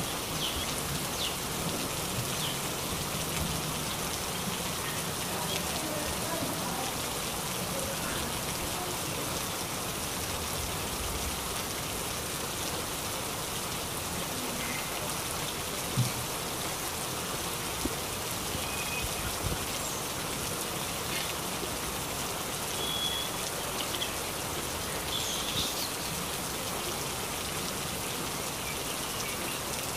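Steady heavy rain falling on trees and nearby surfaces, a continuous even hiss, with a few sharper drips standing out, the strongest about halfway through.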